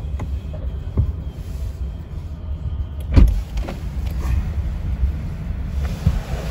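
Low steady rumble of a car idling, heard from inside the cabin, with a few knocks and a louder thump about three seconds in.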